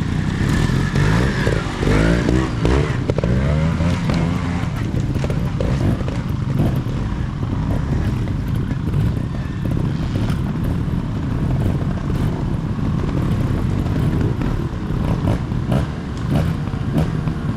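Trials motorcycle engine revving up and dropping back in quick bursts as it is ridden through a rocky section, its pitch rising and falling.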